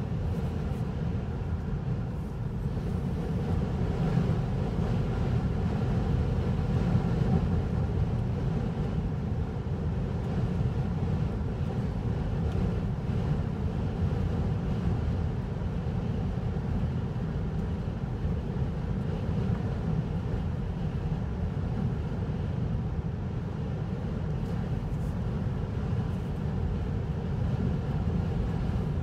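A vehicle running steadily, with engine and road noise that stays even throughout.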